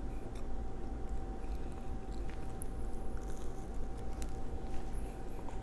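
Close-miked chewing of a soft pretzel nugget dipped in sweet glaze icing: small, irregular wet mouth clicks and smacks over a steady low hum.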